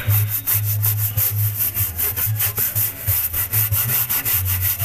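Soft-bristled brush scrubbing degreaser into the inside of a car's wheel well in rapid, regular back-and-forth strokes, with a low hum that comes and goes underneath.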